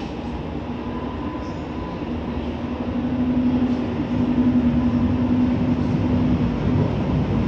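DSW21 Stadtbahn light-rail train pulling away from the platform: a steady electric motor hum that grows louder about three seconds in as the cars speed up past.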